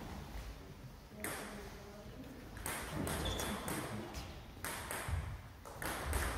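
Celluloid-style table tennis ball clicking sharply against the table and bats, a few hits at uneven intervals with a quicker run around the middle and near the end.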